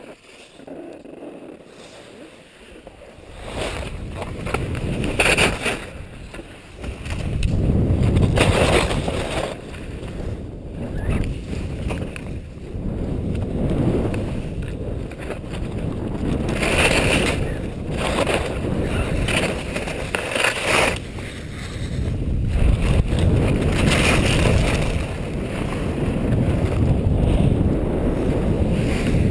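Wind rushing over a helmet-mounted camera's microphone while skiing downhill, starting about three seconds in, with skis hissing and scraping on the snow in swells every few seconds as the skier turns.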